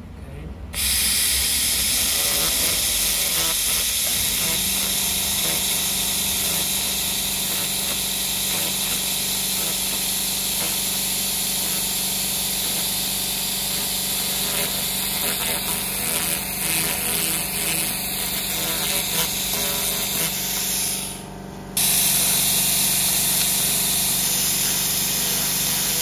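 LightWave 300 TH laser cleaner firing on weld seams: a steady loud hiss as the beam ablates the weld discolouration, cutting out briefly at the very start and again about three quarters of the way through. A low steady hum runs underneath.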